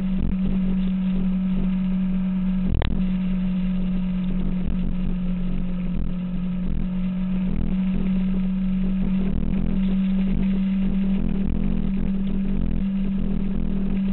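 2006 Kawasaki ZX-6R's inline-four engine running at a steady cruising speed, its note holding level without revving up or down. A single sharp click about three seconds in.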